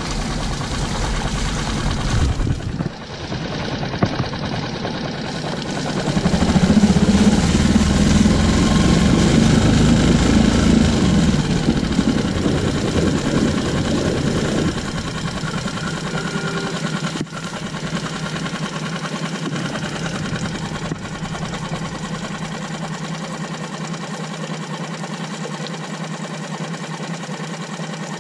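Tohatsu 6 hp four-stroke outboard motor running in gear at low speed in a test tub of water during its break-in run, the propeller churning the water. It gets louder from about six seconds in and drops back to a steadier, quieter run at about fifteen seconds.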